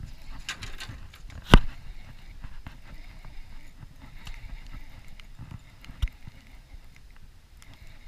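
Wind buffeting the microphone in a low, steady rumble, with one loud sharp knock about a second and a half in and a lighter click near six seconds, amid faint handling ticks from working a baitcasting reel and rod in a canoe.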